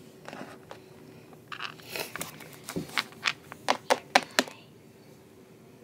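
Littlest Pet Shop plastic toy figures knocking and tapping on a wooden tabletop as they are moved about: a string of about a dozen sharp clicks over two to three seconds, quickest toward the end.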